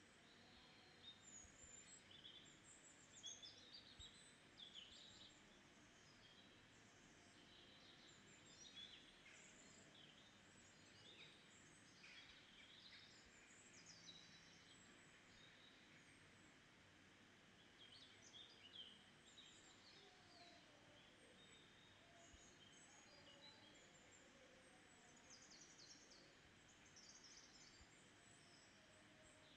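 Near silence: faint birds chirping, many short quick chirps and trills, over a steady low hiss.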